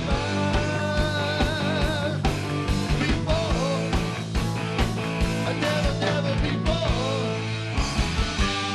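Live rock band playing: male lead vocals over electric guitar, bass guitar and a drum kit with a steady beat.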